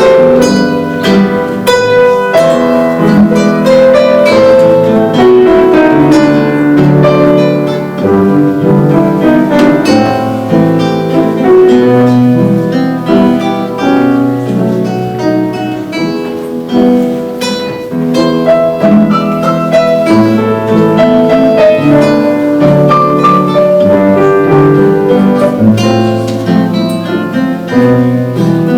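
Instrumental music: a piece of quick, overlapping notes over a moving bass line.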